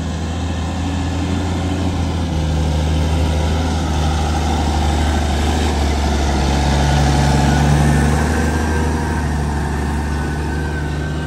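YTO 1604 tractor's diesel engine running steadily as it pulls a 24-disc harrow, swelling louder about seven to eight seconds in and then easing off.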